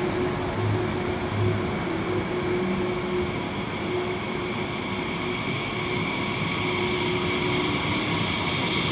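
Frecciarossa 1000 (ETR400) high-speed electric train running at low speed while pulling out: a steady rumble with a steady hum and a high electric whine that grows stronger in the second half.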